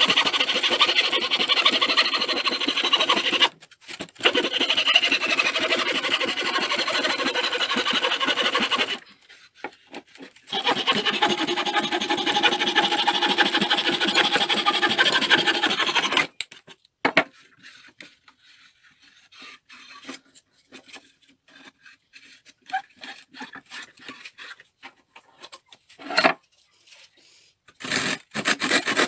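Coping saw cutting through a wooden floorboard in fast back-and-forth strokes, in three long spells with brief pauses between them. About halfway through the sawing stops for a long quiet stretch with a few scattered small knocks, then the sawing starts again near the end.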